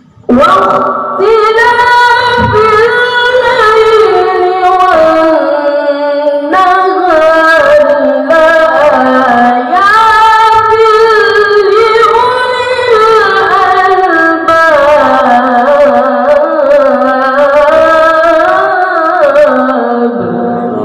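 A boy reciting the Qur'an in the melodic tilawah style into a microphone. It is one long unbroken phrase of held, ornamented notes that wind up and down in pitch. It begins just after the start and fades near the end.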